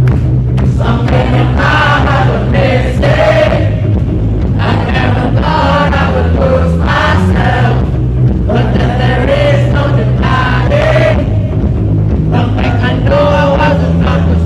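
Band music with singing over sustained low bass notes.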